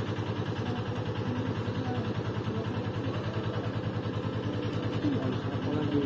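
An engine running steadily with an even, unchanging pulse.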